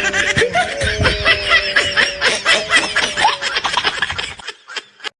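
Laughter, a rapid run of high chuckles and snickers, that cuts off abruptly about four and a half seconds in.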